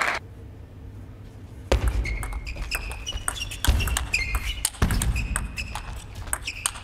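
Table tennis rally: the celluloid ball clicks crisply and quickly off the rackets and the table. Short squeaks come from the players' shoes on the court floor. The rally starts after a quiet first second and a half.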